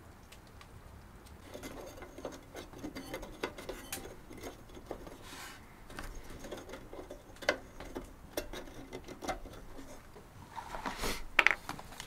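Soft, irregular clicks, taps and scrapes of a metal hurricane lantern being handled on a wooden table, with one sharper click about halfway and a louder rustle and click near the end as a plastic bottle is brought up to the lantern's fuel filler.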